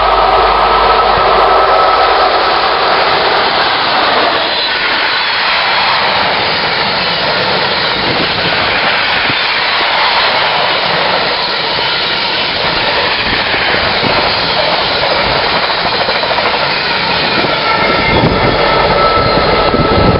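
Freightliner Class 90 electric locomotive passing at speed with an intermodal container train: a steady high whine for the first few seconds, then the continuous rush and rumble of the container wagons rolling past on the rails.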